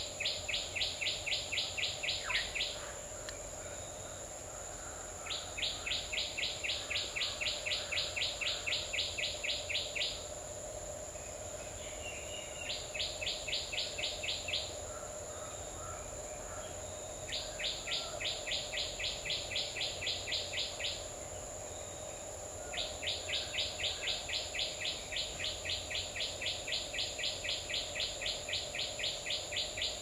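Asian koel calling in quick runs of sharp, evenly spaced notes, about five or six a second, in five bouts lasting from about two to nine seconds with short pauses between. A steady high-pitched insect drone continues underneath.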